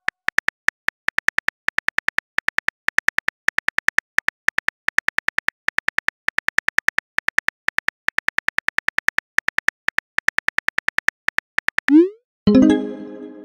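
Simulated phone-keyboard typing clicks, a fast steady run of taps as a text message is typed. Near the end they stop, and a short rising swoosh of the message being sent is followed by a pitched chime that fades.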